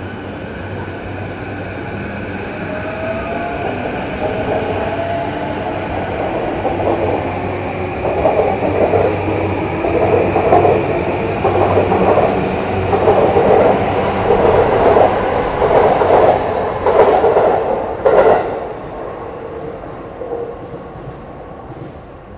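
Electric commuter train pulling out of the platform. The traction motor whine rises in pitch as it picks up speed, then the wheels clatter rhythmically over rail joints as the cars pass, and the sound fades away near the end.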